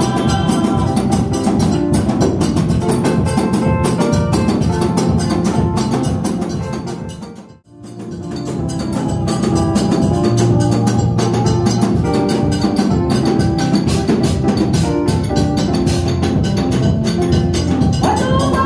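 Live church band music with a steady drum beat and keyboard, played for dancing. The whole sound briefly fades out and back in about eight seconds in, and a singing voice comes back in near the end.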